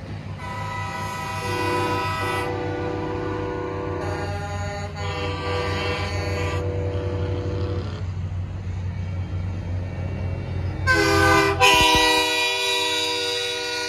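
Semi trucks' air horns blowing three long, chord-like blasts, the last one loudest, over the steady low rumble of diesel truck engines rolling by.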